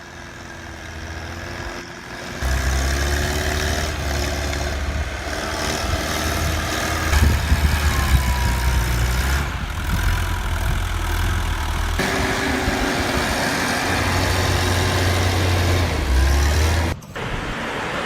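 Engine of a snowplow running steadily as it works, its low drone shifting in pitch and loudness now and then. Near the end the sound breaks off briefly.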